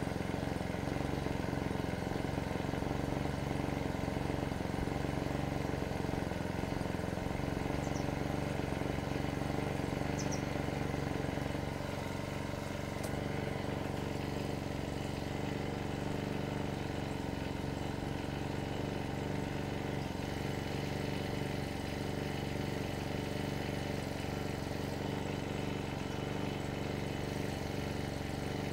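An engine running steadily at an even pitch, dropping slightly in loudness about twelve seconds in.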